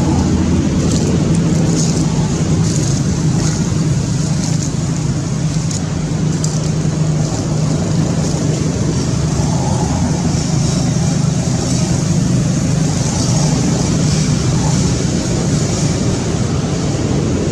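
An engine running steadily with a constant low hum, unchanging throughout.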